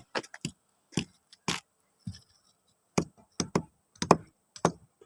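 A series of about a dozen sharp, irregularly spaced knocks, hard material being struck or dropped, with silent gaps between and no drill running.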